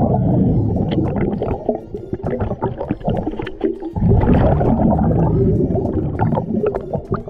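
Scuba diver breathing underwater on a hookah regulator: loud rumbling, gurgling bursts of exhaled bubbles, one through the first couple of seconds and another starting about four seconds in.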